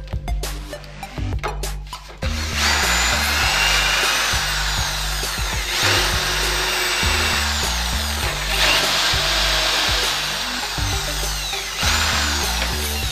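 Handheld electric drill boring through laminated chipboard, starting about two seconds in and running steadily to near the end, under background music with a steady beat.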